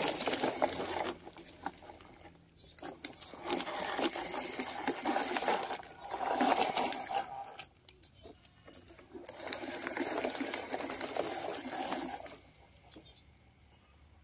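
Plastic toy trucks pushed by hand, their plastic wheels rattling and crackling over plastic sheeting and grit in several stretches with short pauses, quieter near the end.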